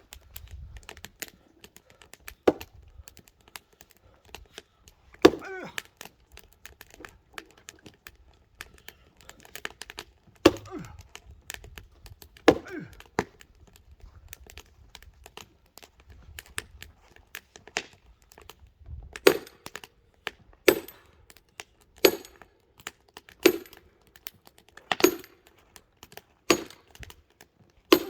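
Axe chopping a very hard log with sharp, cracking blows. The blows are scattered at first, then fall steadily about one every second and a half in the second half.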